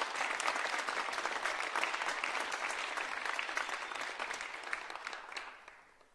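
Theatre audience applauding after a ballet variation ends, the clapping dying away near the end.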